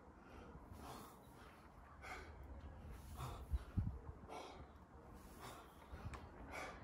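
A man breathing hard from exertion during repeated one-arm dumbbell snatches: faint, forceful breaths roughly once a second, with a couple of dull low thumps.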